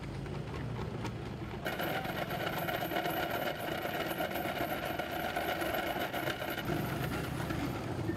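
Street traffic: motorcycles and other vehicles running on a busy road. A steady, higher engine note joins about two seconds in and drops away near seven seconds.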